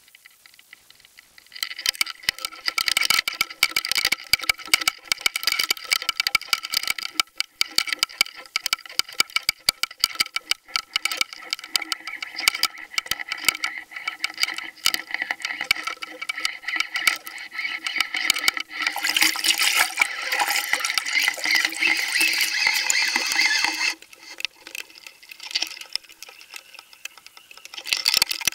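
Water rushing over a Spydro underwater fishing camera towed on the line, with a steady hum of several tones and constant small clicks and knocks. It starts about a second and a half in, grows louder and rougher later on, drops off suddenly, and ends with a short splashy burst as the camera nears the surface.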